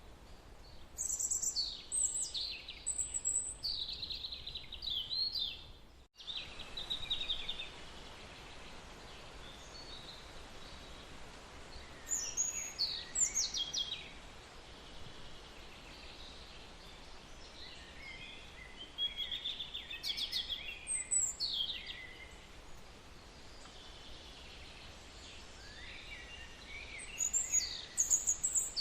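Birds singing in short bouts of high chirps, quick falling whistles and trills, about four bouts separated by pauses, over a steady faint background hiss.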